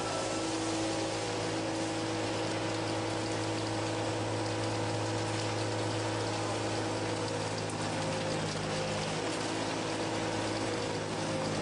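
Fermat WFT 13 CNC horizontal boring mill taking a heavy milling cut: a steady hiss of cutting over several steady hums and whines from the spindle drive, which shift slightly about eight seconds in.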